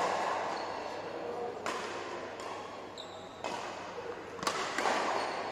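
Badminton rally: rackets striking a shuttlecock, several sharp hits roughly a second apart, each ringing on in a large echoing hall.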